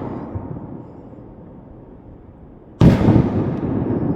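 Firework shells bursting: the rumble of one bang fades away, then another goes off with a loud boom nearly three seconds in, followed by a long rolling rumble that slowly dies down.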